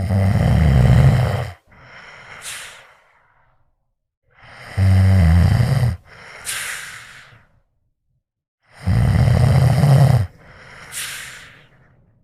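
A cat snoring in three breaths about four seconds apart. Each breath is a loud, low snore lasting about a second and a half, followed by a quieter breath with a high whistle.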